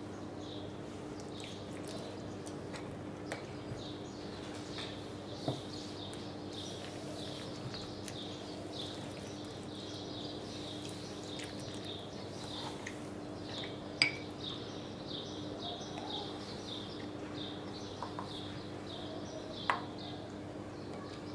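Steady, evenly repeated high chirping, about two to three chirps a second, over a low steady hum. A few sharp light taps stand out, the loudest about two-thirds of the way through: a wooden-handled basting brush knocking against the marinade bowl and board.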